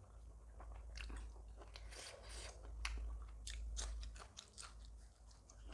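Close-up eating sounds: chewing and biting, with many short wet mouth clicks and soft crunches at an irregular pace.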